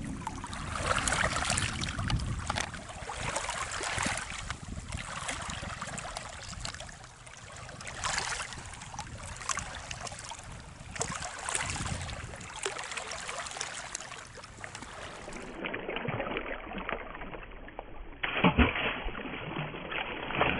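Small waves lapping and trickling against a rocky lakeshore, in soft uneven surges. Near the end, a rock thrown into the lake lands with a single sharp splash.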